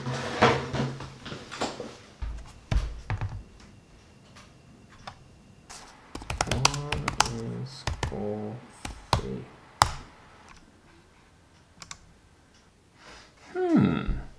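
Typing on a laptop keyboard: scattered key clicks and taps, with a few short wordless vocal sounds in between and a short falling pitched sound near the end.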